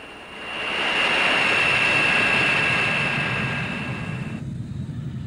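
Jet aircraft engines running: a loud rush with a steady high-pitched whine, swelling up over the first second. About four seconds in, the whine and the hiss cut off, leaving a lower rumble.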